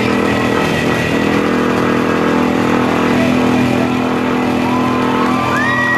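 A road roller's (steamroller's) engine running steadily at a constant pitch.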